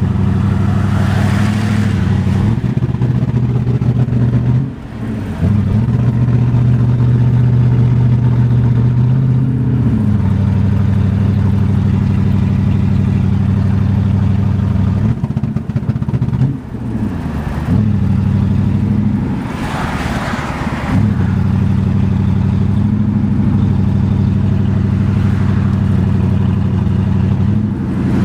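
1981 Mercedes 380SL's K-Jetronic V8 running steadily, its note dropping and picking up again several times as the engine speed changes.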